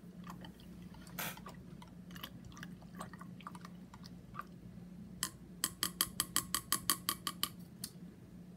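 A spoon stirring chicken broth in a cup, knocking lightly against the side now and then. About five seconds in it speeds into a quick, even run of clinks, about six a second, for a couple of seconds.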